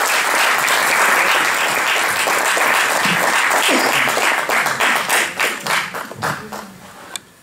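Audience applauding, a dense steady clapping that thins out about five seconds in into scattered single claps, with one last clap near the end.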